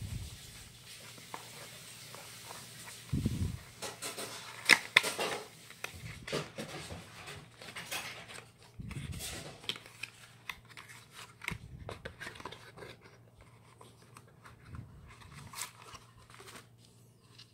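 Small paperboard box being opened by hand and a plastic line spool drawn out of it: scattered rustles, scrapes and sharp clicks of the cardboard flaps and spool, with a few dull bumps.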